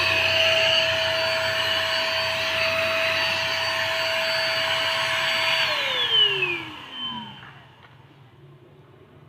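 Electric paint spray gun running with a steady whine and airy hiss, then switched off about six seconds in, its motor winding down in falling pitch until it stops.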